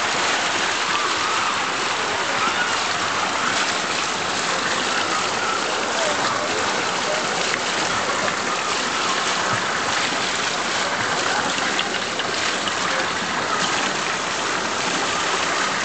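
Water pouring steadily from carved stone spouts and splashing into a shallow bathing pool and over the heads of bathers standing under the streams.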